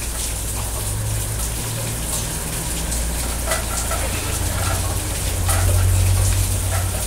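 Steady rain falling, with a continuous hiss and a low rumble close to the microphone.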